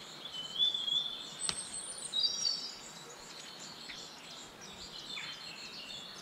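Birds chirping and singing, several high whistled calls over steady outdoor background noise, with a brief click about a second and a half in.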